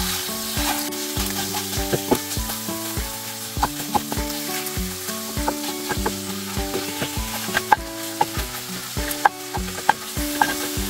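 Salmon frying and sizzling in a stainless steel pan while a wooden spatula scrapes, taps and clicks against the pan, breaking the fish into pieces. A soft tune of held notes plays underneath.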